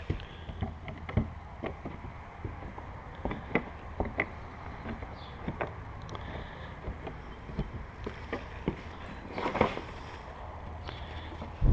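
Light, irregular knocks and clicks of wooden beehive frame parts being handled and fitted together during assembly, with a longer scraping rustle about nine and a half seconds in, over a steady low hum.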